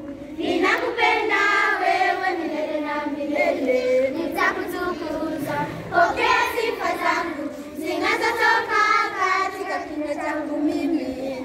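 A group of children singing a song together, in sung phrases with short breaks between lines.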